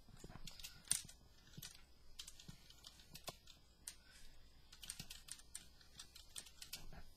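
Computer keyboard being typed on: quick, irregular key clicks, the sharpest one about a second in.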